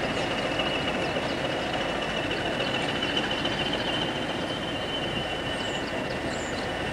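Class 20 diesel locomotive's English Electric engine running steadily as it moves light engine, with a steady high whistle held over the engine noise.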